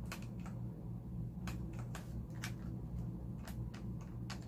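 Scattered light plastic clicks and taps, about half a dozen spread over a few seconds, from handling a Keystone XL300 Super 8 movie camera while AA batteries are being fitted into it. A steady low hum runs underneath.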